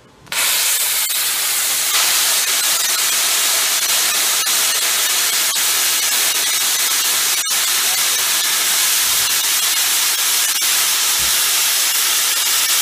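Hypertherm plasma cutter torch cutting steel plate: the loud, steady hiss of the plasma arc and air jet, starting sharply just after the trigger is pulled, with one momentary drop near the middle. The torch is making a fast drag pass along the line.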